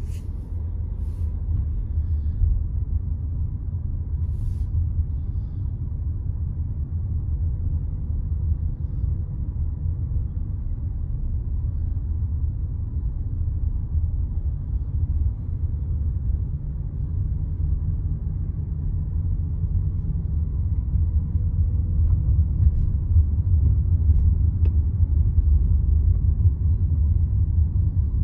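Steady low rumble of a car heard from inside the cabin as it drives along, engine and tyre noise with a faint steady hum. It grows a little louder in the last several seconds.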